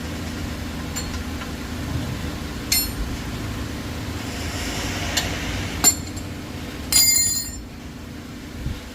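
Metal hand tools clinking and ringing against metal: a sharp clink about three seconds in, another near six seconds, and a longer ringing clatter around seven seconds, over a steady low hum.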